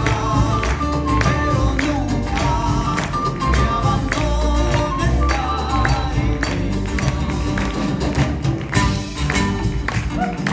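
Live Peruvian music played by a band: a steady percussion beat with a wavering melody line on top.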